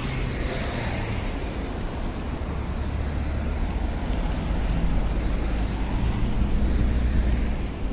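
City street traffic: a motor vehicle's engine running close by, a steady low rumble that grows a little louder in the second half.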